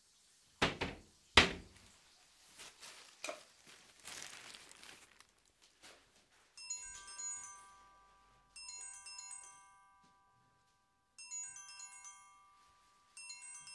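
Two heavy thumps in the first second and a half, followed by lighter knocking and rustling. Then a mobile phone ringtone starts, a short chiming melody in mallet-like tones, repeated four times: an incoming call.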